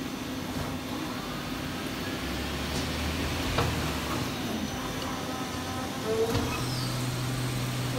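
Amera Seiki TC-3XL CNC lathe running with a steady hum while its tool turret moves and indexes: motor tones come and go, with a sharp clunk about three and a half seconds in and another about six seconds in.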